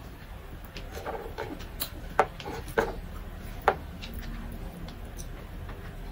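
A person eating by hand close to the microphone: chewing and mouth smacks, with three sharp smacks a little after two seconds, near three seconds and near four seconds.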